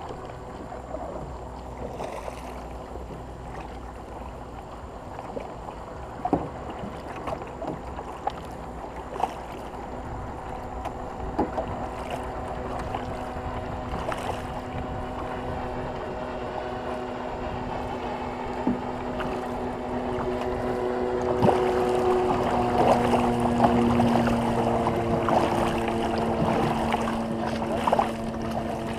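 A war canoe being paddled, with a steady rush of water and occasional knocks. In the last third a steady droning hum comes in and grows louder.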